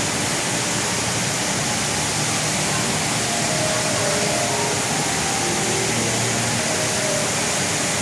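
The Rain Vortex indoor waterfall pouring from the roof into its basin: a steady, even rush of falling water.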